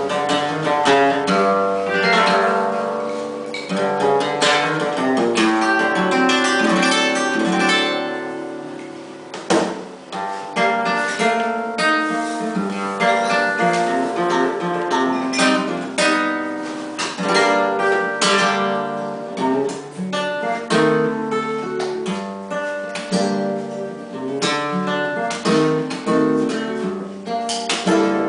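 Solo Spanish guitar played live in a flamenco-tinged style: fingerpicked runs and chords with sharp strummed accents. The playing softens briefly and is then struck with a hard strummed chord about nine and a half seconds in.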